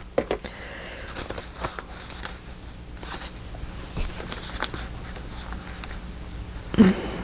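Paper being handled and shuffled on a desk: light rustles and small taps and clicks at irregular intervals.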